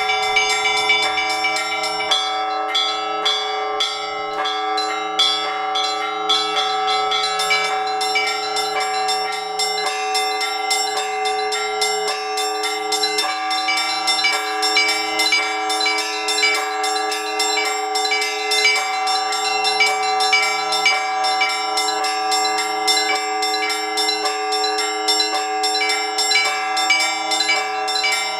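Russian Orthodox church bells rung by hand by a bell-ringer. Small bells are struck quickly, several times a second, over the long ring of the larger bells.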